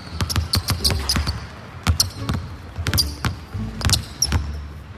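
Basketballs dribbled fast on a hardwood gym floor: a quick, uneven run of sharp bounces as two balls are worked at once.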